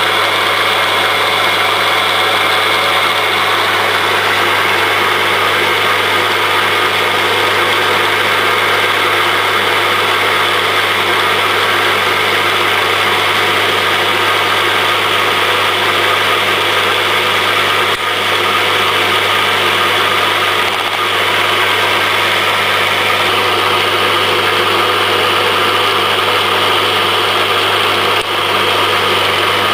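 Motor-driven steel shaft spinning in pillow-block bearings on a machine rig, making a steady mechanical whir with an even low hum.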